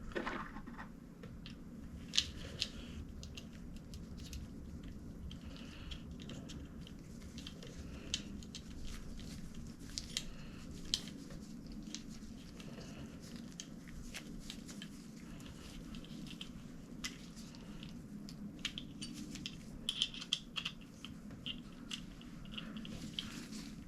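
Scattered small clicks, taps and rustles of hands fiddling with small bicycle derailleur parts and tools, with a few sharper clicks, over a steady low hum.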